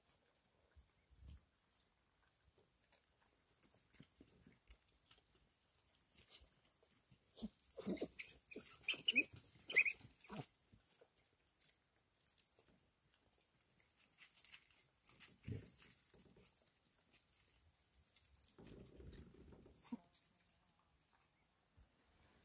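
African wild dog pups squeaking and twittering as they scramble together, with a burst of high, excited squeals in the middle, over soft scuffling.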